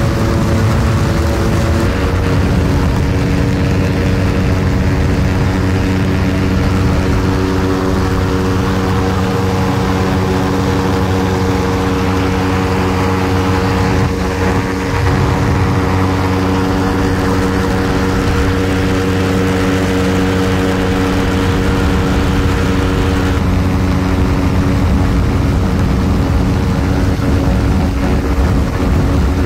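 Ultralight aircraft's engine and propeller running at a steady speed, an even drone whose pitch shifts slightly about two seconds in.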